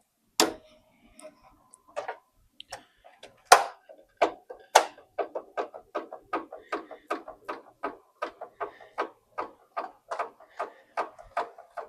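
Clicking and tapping from a hand tool tightening a radiator hose clamp. A few louder knocks come first, then a steady run of about three clicks a second.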